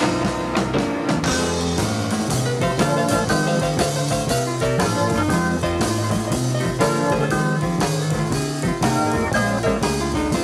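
Instrumental rock music with guitar and drums, keeping a steady beat.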